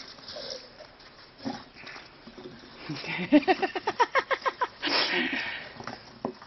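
American Staffordshire terrier growling in a fast run of short grunting pulses, about eight a second for a second and a half, while it tugs at a rubber tyre. A short breathy huff follows.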